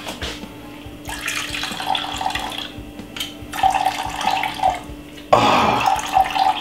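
Sugar cane juice trickling steadily from a mesh strainer into a glass measuring jug. A louder burst of noise comes about five seconds in.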